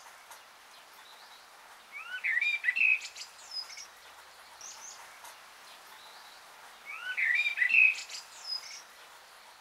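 Small birds chirping and singing: two bursts of quick sliding calls about two and seven seconds in, with fainter high chirps between, over a soft steady hiss.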